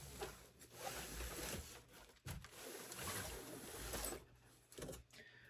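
Packaging rustling and scraping as the RC car's chassis is pulled out of its box, with a couple of sharp clicks.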